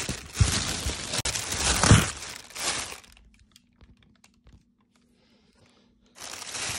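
Plastic packaging and cardboard box rustling and crinkling as they are handled, with a couple of dull knocks in the first two seconds. It goes quiet for about three seconds, then the rustling starts again near the end.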